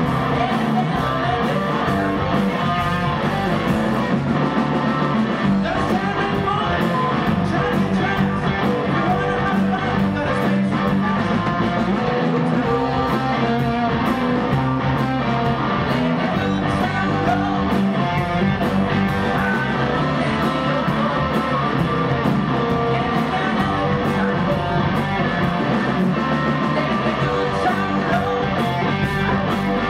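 Live blues-rock band playing: electric guitars, electric bass and a drum kit, with the cymbals struck in a steady beat.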